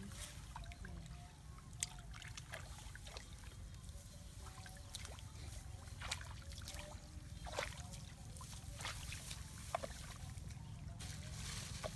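Shallow muddy water in a rice paddy sloshing and splashing in short, irregular strokes as a person wades and gropes by hand for fish, over a steady low rumble.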